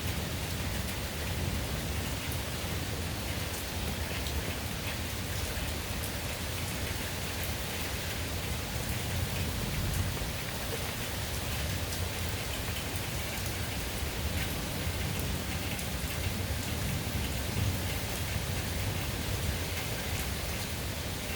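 Steady summer rain falling, with scattered drops ticking on a surface.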